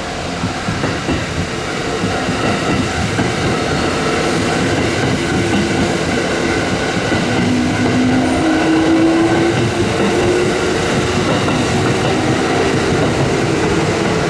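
Kintetsu electric train passing at reduced speed over a level crossing, its wheels clicking over the rail joints. The sound grows louder over the first two seconds, and a low whine rises slightly in pitch about seven seconds in.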